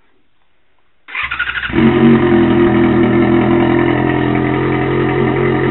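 Yamaha XJ6's 600 cc inline-four engine started on the electric starter. It cranks briefly about a second in, catches half a second later, and settles into a steady, loud idle through an exhaust with its baffle removed.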